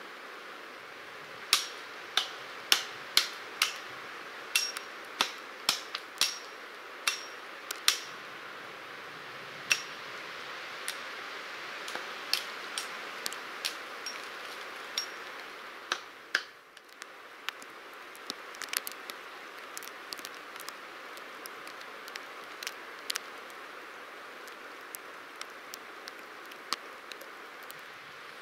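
Steady outdoor hiss in a pine forest, with scattered sharp ticks and clicks, some with a brief high ping. The ticks come about twice a second for the first eight seconds, then more sparsely.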